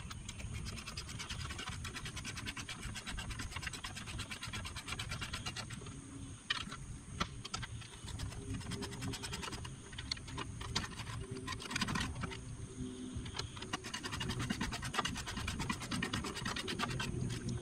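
Ratchet wrench clicking in rapid runs as bolts are tightened between the engine and the transfer plate of a surface-drive mount.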